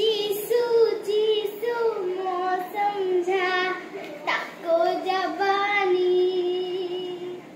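A girl singing a song unaccompanied in a high voice, holding long wavering notes in phrases with short breaks between them.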